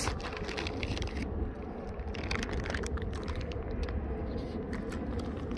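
Canada goose pecking pellets from a person's open palm, its bill making light, irregular clicking taps, over a steady low rumble.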